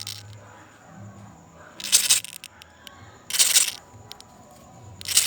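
A threatened grasshopper making its defensive sound with its wings, which work like a bellows: three short noisy bursts about a second and a half apart.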